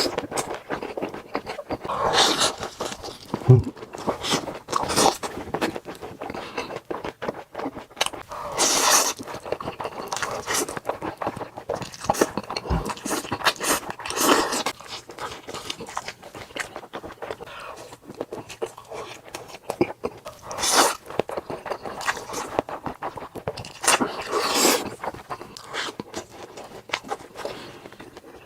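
Close-miked eating sounds: chewing, crunching and wet mouth smacking, with many quick clicks and a louder bite or slurp every second or two.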